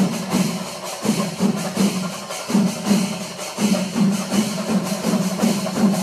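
Rhythmic festival percussion: drums and cymbals struck in a fast, even beat, about three strokes a second.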